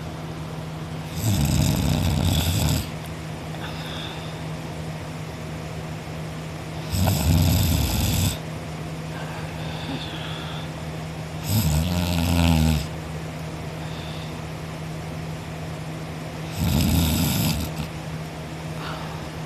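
A man snoring in his sleep: four loud snores about five seconds apart, each lasting a second or more. The third is more buzzing and pitched than the others.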